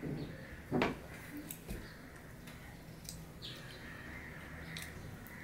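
Eating with the hand: fingers wiping and mixing food on a stainless steel plate, with a sharp tap a little under a second in and a few lighter clicks, along with chewing.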